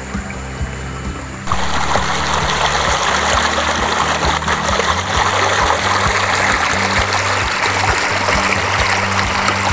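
Shallow rocky stream rushing and splashing over stones, coming in loud about a second and a half in over background music.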